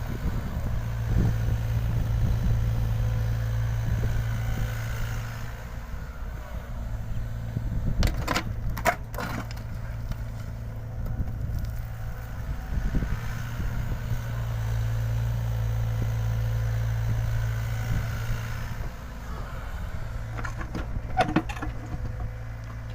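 LiuGong 906F mini excavator's diesel engine running steadily, swelling louder for two stretches as it works. A few sharp clanks come about a third of the way in and again near the end.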